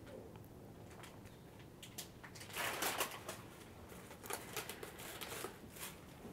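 Faint crinkling and rustling of paper packaging as a sterile glove package is peeled open and its inner paper wrap unfolded on a bench, in short scattered crackles, the loudest about halfway through.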